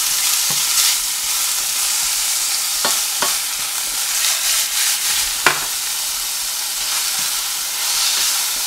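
Sorrel leaves and cherry tomatoes sizzling in olive oil in a stainless steel frying pan as a spatula stirs them. A few sharp clicks of the spatula against the pan are heard, the loudest about five and a half seconds in.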